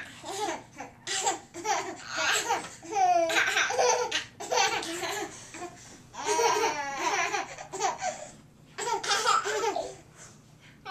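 Toddlers laughing in several high-pitched bursts with short pauses between them, trailing off near the end.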